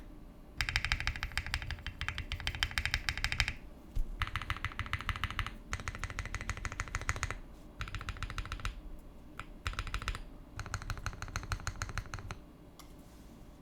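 Zoom75 mechanical keyboard with lubed Akko CS Silver linear switches being typed on fast, in bursts of rapid keystrokes with short pauses between them, giving the build's creamy, poppy sound. The typing stops about a second before the end.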